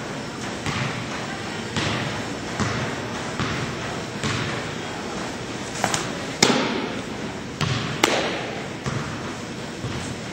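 Softball pitch smacking into a catcher's mitt with a sharp pop that echoes round a large indoor hall, a little over halfway through, and another sharp pop about a second and a half later, among softer thuds and knocks.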